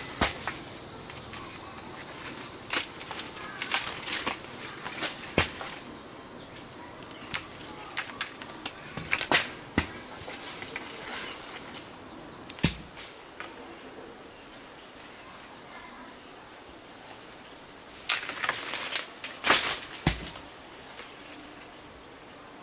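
Insects chirring steadily at a high pitch, with scattered sharp knocks and rustles, the loudest in a cluster near the end.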